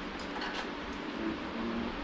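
A few faint, light metal clicks from work on a snowmobile's front suspension, over a steady low shop hum.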